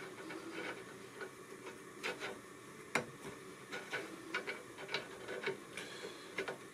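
Faint, irregular metallic clicks and ticks as a new axle nut and washer are turned by hand onto the threaded end of the front driveshaft in a VW Polo 86c wheel hub.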